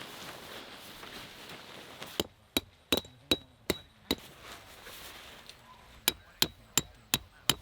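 Tent stakes being hammered into the ground: two runs of sharp, evenly paced strikes, about three a second with a brief metallic ring, six and then five after a short pause. Rustling noise comes before the first strikes.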